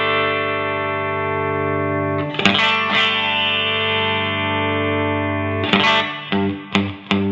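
Electric guitar played through a DOD 280A compressor pedal. A held chord rings on with long, even sustain, a new chord is struck about two and a half seconds in and sustains for about three seconds, then a run of separately picked notes starts near the end.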